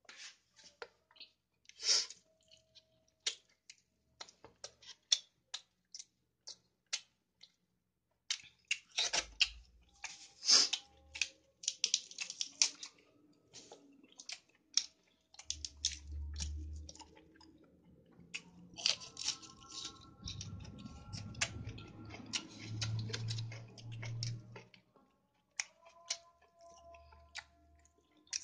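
Close-up mouth sounds of a person chewing chicken biryani and grilled chicken by hand: irregular wet smacks and clicks, some sharper ones in a run about a third of the way in. A low hum comes in around the middle and stops a few seconds before the end.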